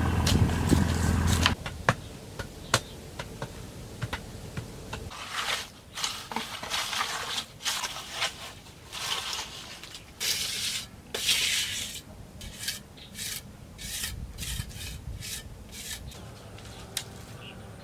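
A steady low hum that cuts off about a second and a half in, then a run of rough rasping strokes, about two a second, of a hand tool working bamboo or wood.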